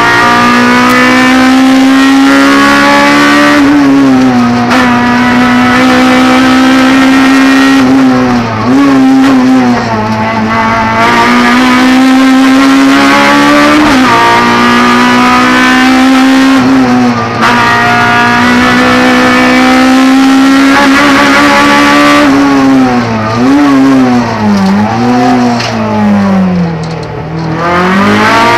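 Honda Civic Type R four-cylinder race engine heard from inside the cabin, held at high revs under full throttle. The revs dip and climb back at gear changes, several times in quick succession near the end.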